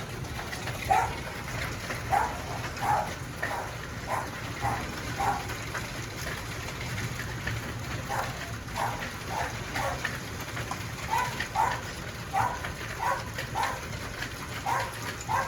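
Heavy hail, up to ping-pong-ball size, and rain coming down in a steady patter. Over it comes a run of short barks every half second to a second, with a pause of about two seconds midway.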